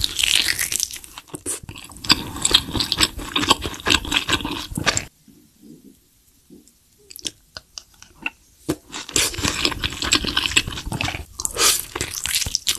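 Close-miked chewing and biting of a fried egg on a cheese-topped meat patty, wet and squishy with small crunches. It comes in two long bouts, with a quieter stretch of about three seconds in the middle broken by a few small clicks.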